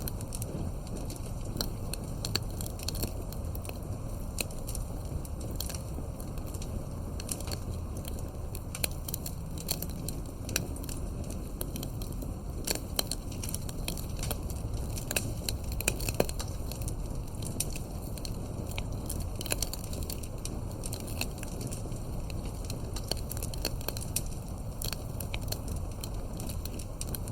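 Wood fire crackling, with irregular snaps and pops over a steady low rumble.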